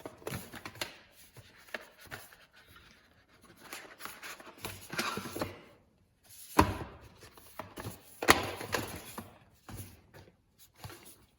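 Metal combination wrenches being handled: irregular clinks, clicks and knocks with some rustling, two sharp knocks standing out in the second half.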